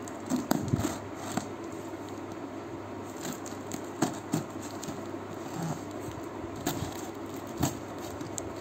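A knife blade slitting the packing tape on a cardboard box: scraping and rustling broken by sharp clicks and taps. There is a cluster of taps about half a second in, another about four seconds in, and two more near the end, over a steady background hiss.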